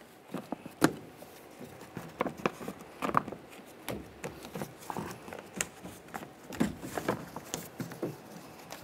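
Clear plastic vapor barrier sheet crinkling and rustling as gloved hands press it back onto a car's inner door panel, with scattered light clicks and taps at irregular intervals.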